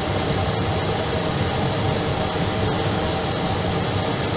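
Steady drone of an Airbus airliner's cabin in flight on approach: an even rush of engine and air noise with no changes.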